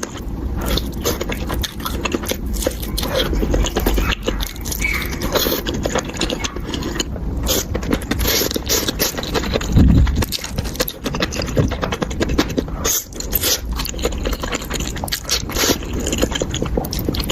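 Utensils scraping and clicking against a bowl of noodles in a dense run of quick strokes, with a louder thump about ten seconds in.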